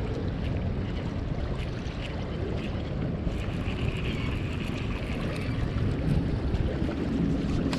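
Steady wind noise rumbling on the microphone, with a faint whir from a baitcasting reel being cranked for a second or two near the middle.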